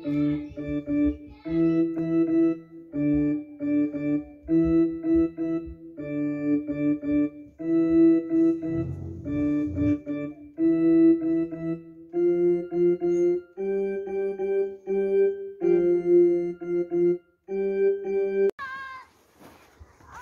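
Digital piano keys pressed one at a time with a single finger, a child's simple tune of short repeated notes in little groups, the pitch stepping up about two-thirds of the way through. The playing stops suddenly near the end.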